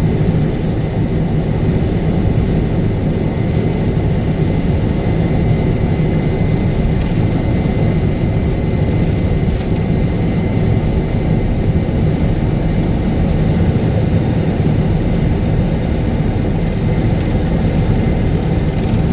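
Boeing 747 flight deck during the takeoff roll, between the 80-knot check and V1: the steady, loud, low rumble of the engines at takeoff thrust and the aircraft rolling down the runway, with a faint steady high tone.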